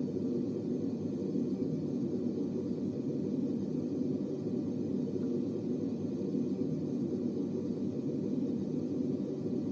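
Steady low-pitched rumbling noise, unchanging in level, with no voices or distinct events.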